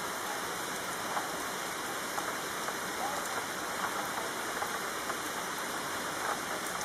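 Steady rainfall: a dense, even hiss of rain with individual drops heard as faint ticks.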